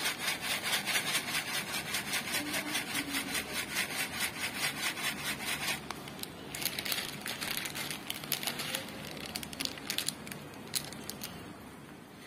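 Aquarium air-stone bubbles and water: a rhythmic rasping hiss, about four pulses a second, that changes about six seconds in to irregular crackling and splashing, fading near the end.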